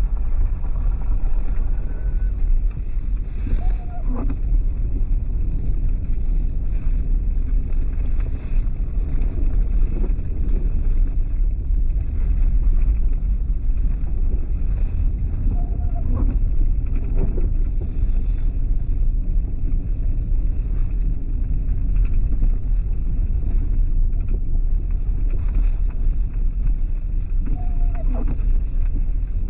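Steady low rumble of a vehicle on the move, with wind noise, and a short faint squeak about every twelve seconds.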